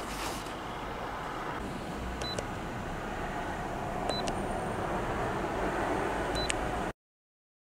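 Three short high-pitched key beeps from a Launch Creader VII+ OBD scan tool as its buttons are pressed to confirm erasing the fault codes, over a steady background noise. The sound cuts off suddenly near the end.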